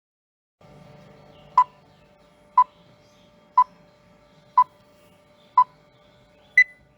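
Countdown beeps: five short electronic beeps of the same pitch, one a second, then a final higher beep, over a faint steady hum.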